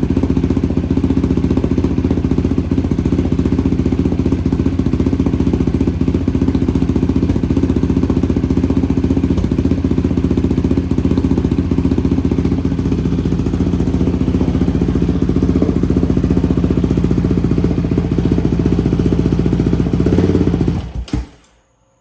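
Yamaha Raptor 700R's single-cylinder four-stroke engine idling steadily through a new Empire Industries single exhaust, running on a freshly flashed fuel map. It shuts off abruptly about a second before the end.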